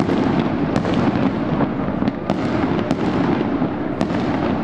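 Fireworks display at full intensity: a dense, continuous rumble of shell bursts, with sharp cracks standing out every second or so.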